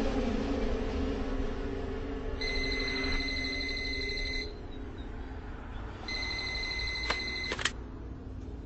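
Telephone ringing twice with an electronic ring, each ring about two seconds long, then a couple of clicks as the handset is picked up near the end.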